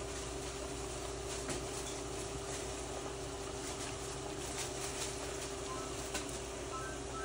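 Spaghetti boiling in a large pot of water, a steady bubbling hiss, as a plastic spoon stirs it, with a few faint knocks of the spoon against the pot.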